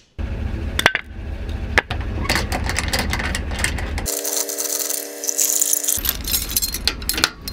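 Metal clinks and rattling from trailer hitch hardware: the coupler latch closing on the hitch ball and the steel safety chains. These come over a low steady rumble. For about two seconds in the middle the rumble gives way to a steady hum and hiss.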